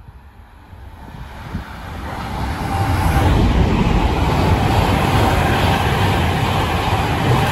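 A passenger train approaching and running past at speed directly below: a rising rush of wheels on rail that builds over the first three seconds, then stays loud and steady.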